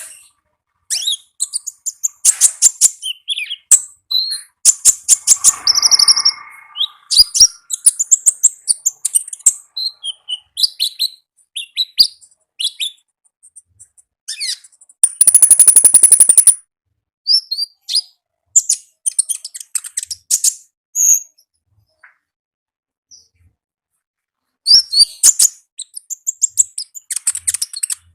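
Konin (common iora) singing loudly: rapid runs of short high chirps and trills broken by brief pauses, with a loud, fast buzzing trill about fifteen seconds in.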